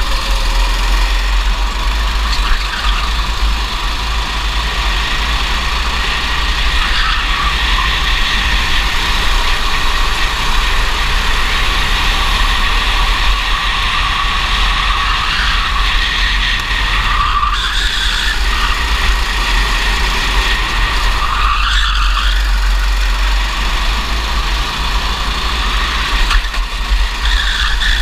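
Racing kart engine at high revs, heard from the driver's seat. Its pitch dips and climbs again several times as the driver lifts and accelerates through the corners. A steady deep rumble of wind buffets the onboard microphone underneath.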